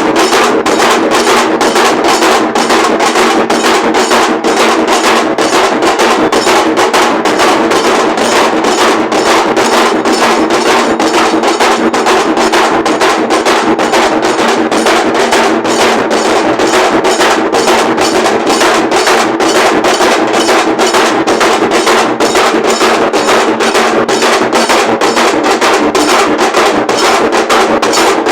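A group of large dhol drums playing a fast, steady, driving beat, loud and unbroken, with sharp strikes several times a second.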